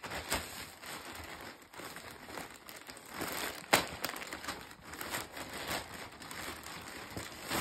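Plastic poly mailer bag crinkling and rustling as a hat is pulled out of it, in irregular crackles with one sharper, louder crackle about halfway through.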